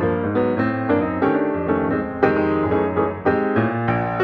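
Background piano music: a steady run of quick notes with chords ringing under them.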